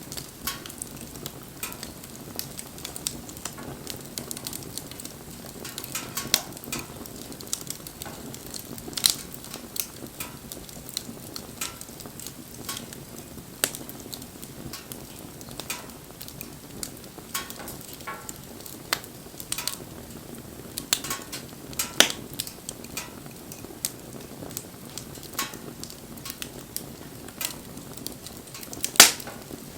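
Wood campfire burning, crackling steadily with irregular sharp pops; two louder pops come about 22 and 29 seconds in.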